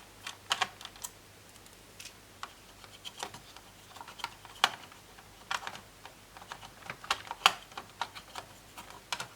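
Irregular small clicks and taps of plastic and metal laptop parts being handled and worked on during disassembly of a Lenovo B550, with the loudest clicks spaced unevenly.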